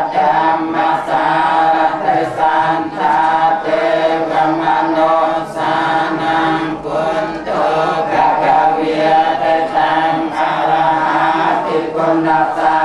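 Buddhist monks chanting together, their voices held on a near-steady pitch in long phrases with brief breaks.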